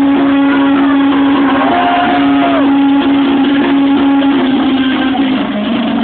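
Loud music: a long held low note runs through most of it, with a higher note that glides up, holds for about a second and glides back down.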